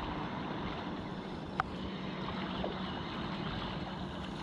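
Steady rush of wind on the microphone and moving river water, with one short sharp click about a second and a half in.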